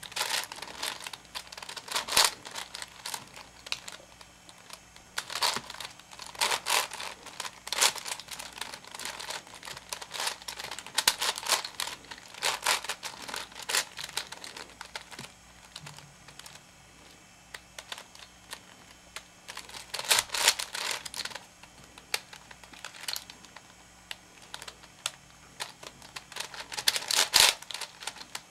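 Plastic layers of a V-Cube 7 (7x7x7 puzzle cube) being turned by hand: quick runs of clicking and clacking as the slices snap round, with quieter spells between the runs.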